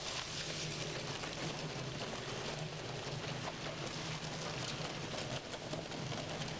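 Intimus 16.86 industrial shredder running steadily, a low motor hum under a dense crackle of paper being torn up in the cutting rollers.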